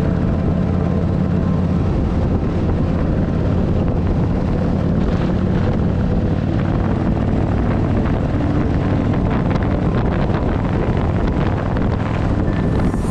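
Harley-Davidson motorcycle running steadily at road speed, a low engine drone mixed with wind rushing over the microphone.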